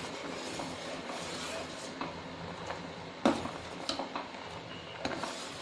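A steel ladle stirring milk and black chickpeas boiling in a stainless steel pan, scraping and clinking against the pan over a steady hiss, with a few sharp clinks, the loudest a little after three seconds in.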